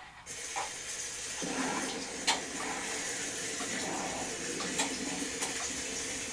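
Steady rushing of water, starting abruptly and growing fuller about a second and a half in, with a few faint clicks over it.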